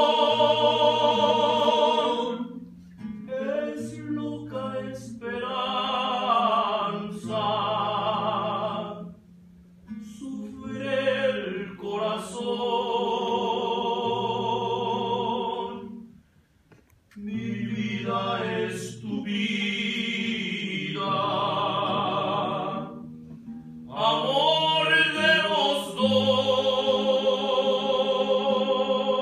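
Mariachi song: voices singing long held notes with wide vibrato over low bass notes, broken by a couple of short pauses.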